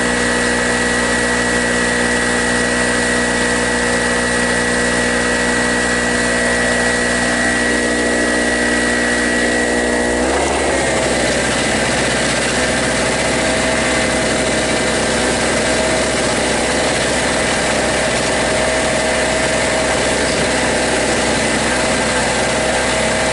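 Small Harbor Freight Storm Cat two-stroke portable generator running steadily. About ten seconds in, its engine note shifts abruptly and then settles at a slightly different steady pitch.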